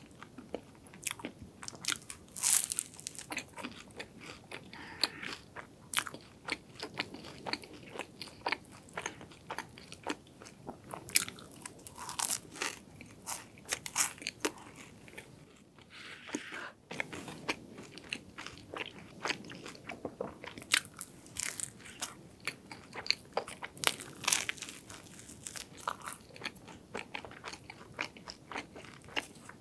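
Close-miked crunching and chewing of a croffle: repeated crisp, crackly bites into the syrup-glazed crust, with soft chewing between them. The bites ease off briefly around the middle.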